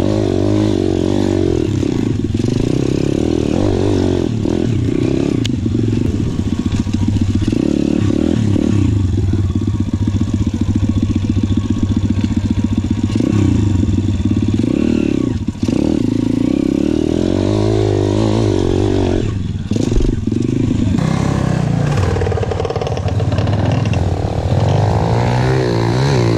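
Dirt bike engine heard close up, revving up and down hard as the bike climbs and drops over dirt mounds, its pitch rising and falling many times. A brief dip in the engine sound comes a little past halfway, and a short thump about twenty seconds in.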